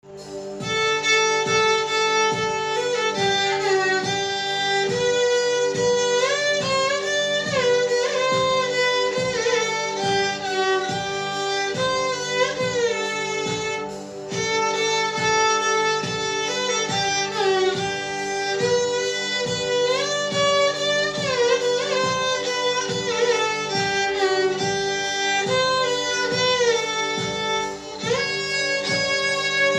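Solo violin played in the seated South Indian (Carnatic) hold, a melody with many sliding, ornamented notes. Beneath it run a steady drone and a low, regular beat.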